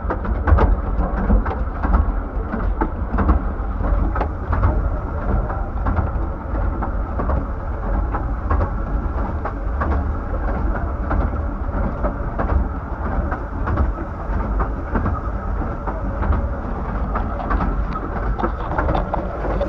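A 15-inch gauge miniature railway train running along the line: a steady low rumble of wheels on track, with frequent irregular clicks and knocks throughout.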